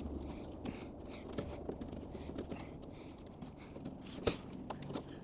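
Rubber window seal being pressed and worked by hand into a truck door's window channel: faint rubbing and handling with a few small clicks, the sharpest about four seconds in.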